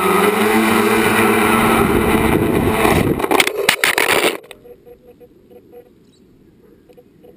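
A tricopter's electric motors and propellers whining steadily in low flight. About three seconds in come rapid clattering knocks as it hits the ground and tips over, then the motors cut off suddenly, leaving only faint background.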